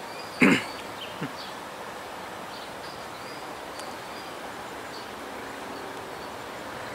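Steady outdoor background hiss with faint high insect-like chirps. A short, loud pitched sound comes about half a second in.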